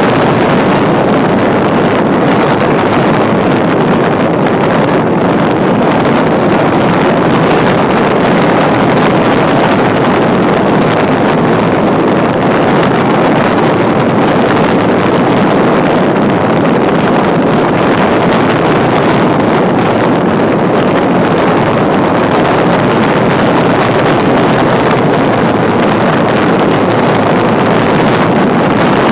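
Loud, steady wind rush blowing across a microphone mounted outside a moving 4WD, with no change in level.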